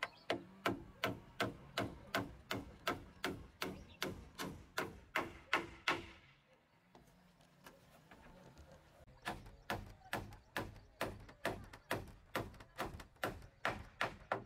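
Hammer blows nailing wooden roof battens onto rafters, an even run of about three sharp knocks a second. The knocking stops for about three seconds in the middle, then starts again at the same pace.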